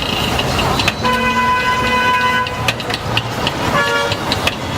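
Vehicle horns honking over steady street traffic noise: one horn held for about a second and a half, then a second, higher-pitched horn sounding briefly near the end.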